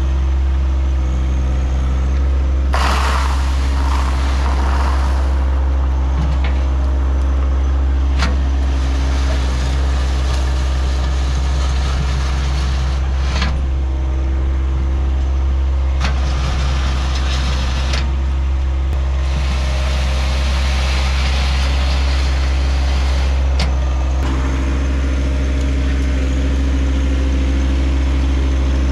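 John Deere 1023E subcompact tractor's three-cylinder diesel engine running steadily under work while backfilling gravel. Several louder rattling stretches and a few sharp knocks come and go over the engine drone.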